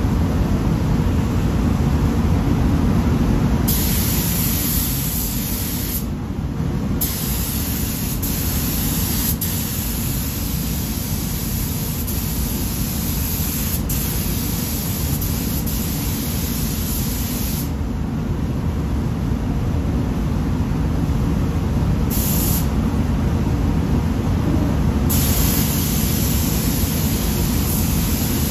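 Gravity-feed paint spray gun hissing in long passes as pearl white paint goes onto car bumper covers. The trigger is let off for short breaks, the longest past the middle, all over a steady low rumble.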